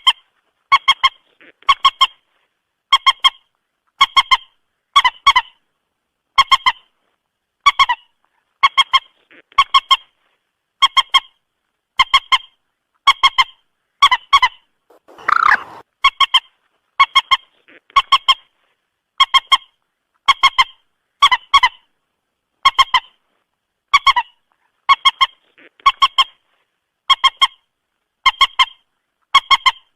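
Common moorhen calling over and over: short, clipped honking notes, mostly in quick pairs, about once a second, with a longer, harsher call about halfway through.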